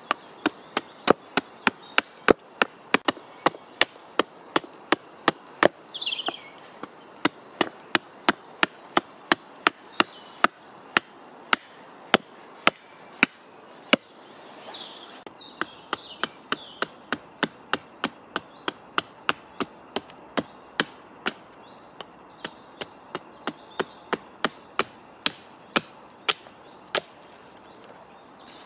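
Hatchet chopping a fresh birch spoon blank held against a rotten log: a steady run of sharp chops, about two to three a second, with a brief pause about halfway.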